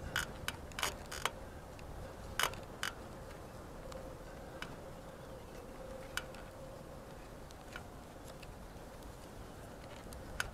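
Hands working a roll of vinyl electrical tape around twist-on wire nuts, giving a handful of sharp clicks and crackles. Most fall in the first three seconds, with one or two more later.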